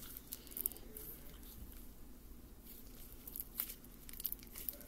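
Butter slime being squeezed and stretched between the hands, giving faint, irregular sticky clicks and pops.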